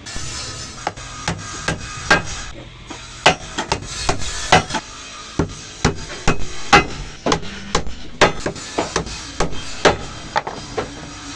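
Hammer knocking on wood in quick, uneven blows, two or three a second, over background music.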